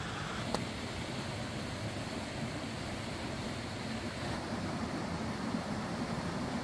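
Steady low rushing background noise, with a single sharp click about half a second in.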